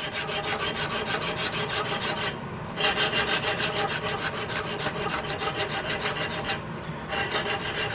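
Sandpaper rubbed back and forth by hand over the cast metal base of a muzzleloader's buckhorn rear sight, polishing it, at about five quick strokes a second. The strokes ease briefly about two seconds in and again near the end.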